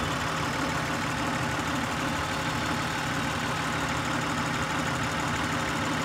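Acura TL 3.2-liter V6 idling steadily with cylinder 5's ignition coil unplugged for a cylinder drop test, running on the remaining cylinders as its idle speed drops.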